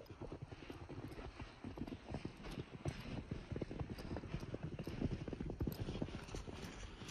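Boots crunching through fresh snow in a steady walking rhythm, each step a dense crackle of packing snow.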